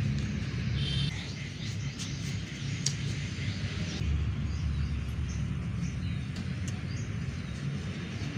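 Outdoor street background: a steady low rumble with a short high chirp about a second in and a few faint clicks.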